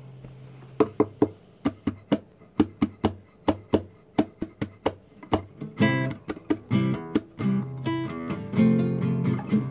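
Acoustic guitar played solo: single plucked notes at about two a second, then fuller strummed chords from just past halfway.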